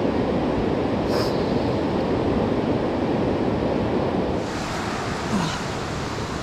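Steady, even rushing noise of a mountain river flowing below in its gorge.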